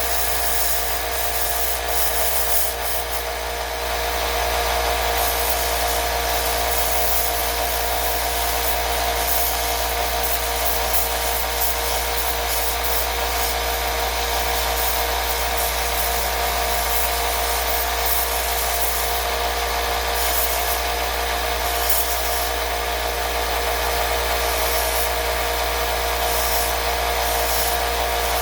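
Belt sander running steadily as a steel screwdriver blade is sanded down toward bare metal: a continuous rubbing hiss over the motor's hum, a little louder from about four seconds in.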